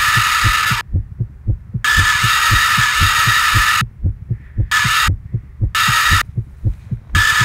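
Film soundtrack sound design: a fast, even low thumping pulse of about five beats a second. Over it a loud hiss with a high whistling tone cuts in and out abruptly several times.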